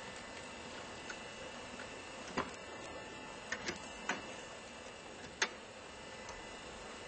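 A handful of sharp clicks and knocks, about five, spread over a few seconds, from hand work at a wooden roof soffit being opened up to remove a honey bee hive, over a steady background hiss.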